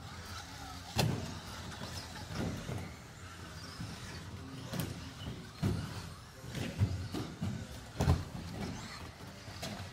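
Radio-controlled off-road buggies racing: small motors whining and wavering in pitch, with sharp knocks about one, five and eight seconds in, the loudest near the end.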